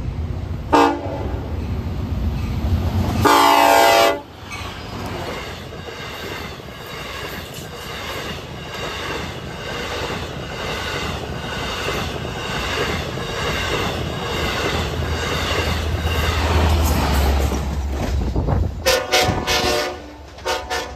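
Long Island Rail Road diesel locomotive horn: a short blast about a second in, then a loud longer blast. Then the train's bi-level passenger cars run past with a steady rush and an even, rhythmic wheel clatter. Several more short horn blasts come near the end.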